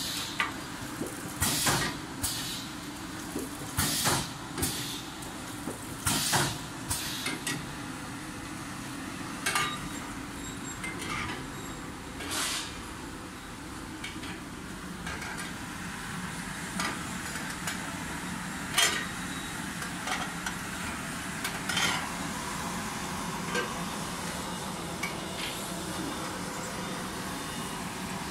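Automatic L-type sealer and shrink-wrap tunnel running: a steady hum of motors and fan, with repeated sharp mechanical clacks at irregular intervals, most frequent in the first several seconds.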